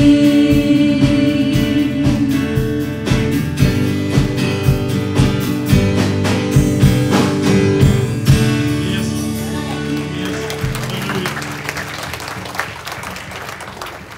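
Live church worship band, with singers and guitar, finishing a song: a steady beat until about eight seconds in, then a final held chord that fades away, with light applause from the congregation near the end.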